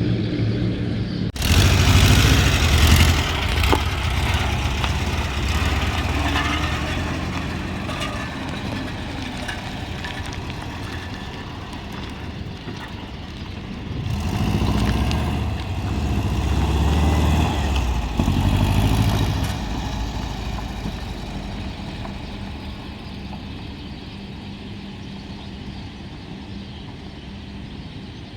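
Volkswagen Kombi engine running: revved up sharply about a second and a half in, then easing back. It is revved again for several seconds in the middle before settling to an idle. The revving is to check the exhaust for black smoke while the owners look for a suspected fault.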